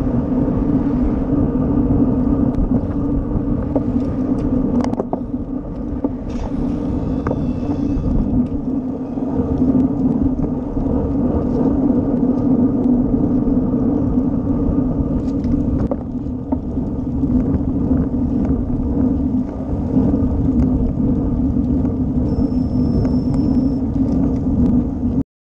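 Wind and road noise on a road cyclist's action camera while riding: a steady rumble with a constant low hum, cutting off abruptly near the end.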